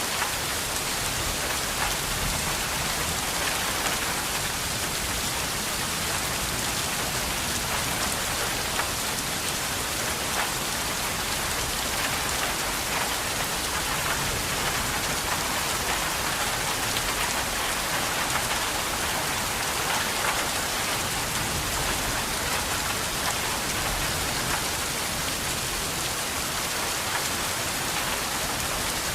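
Steady rain falling and pattering on a surface, a dense even hiss with many individual drops.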